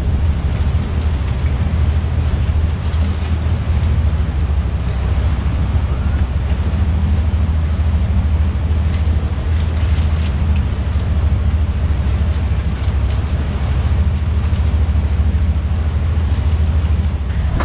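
Boat under way: a steady low engine drone mixed with wind buffeting the microphone and the wash of water past the hull.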